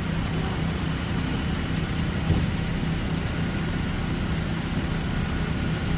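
Fire truck engine idling steadily, a sound effect with a low even hum.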